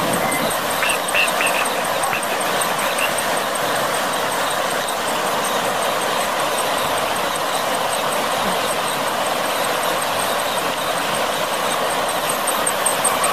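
Steady rushing of floodwater, an even hiss-like noise with little bass, with a faint high regular ticking and a few short high chirps in the first few seconds.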